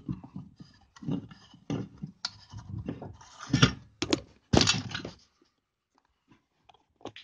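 Close-up handling noise: irregular clicks, knocks and scrapes, stopping about five seconds in, then only a few faint ticks.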